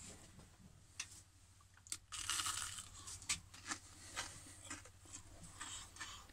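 A man biting into the crisp breaded crust of a deep-fried beef croquette and chewing it, with the loudest crunch about two seconds in and softer crunches after.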